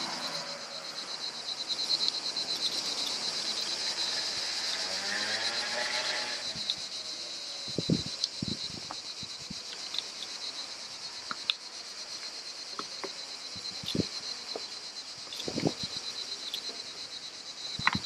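Cicadas droning steadily with a fast pulsing chirr. In the second half a few short, dull knocks sound under it, and in the first few seconds a fainter lower sound wavers in pitch.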